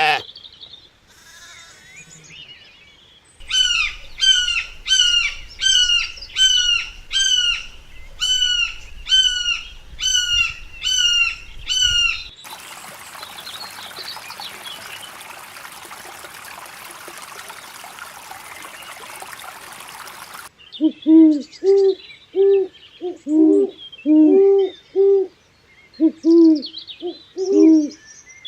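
Bird calls in three parts. First comes a run of about a dozen high, downward-sliding calls, about one a second. Then a stretch of steady hiss without calls, and near the end a quick series of about ten low, hooting coos.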